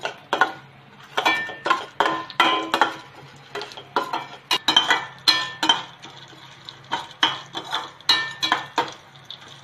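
Metal spoon stirring and scraping roasted gram, spices and curry leaves in a stainless steel pan: irregular clinks and scrapes, the pan ringing briefly after each stroke, thickest in the middle and again near the end.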